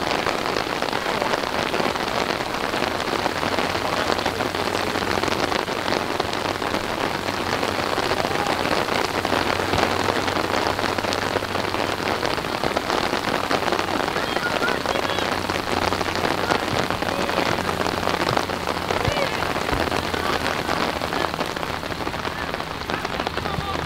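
Steady rushing noise like rain falling on a surface, with a low hum joining about nine seconds in.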